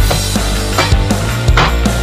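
Loud background music with a heavy bass line and a steady drum beat.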